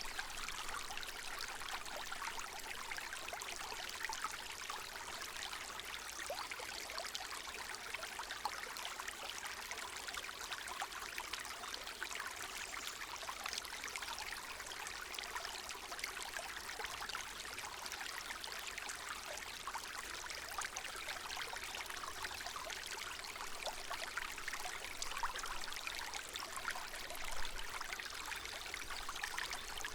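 Small meandering woodland stream trickling and burbling over stones, a steady run of water with many small splashes and gurgles.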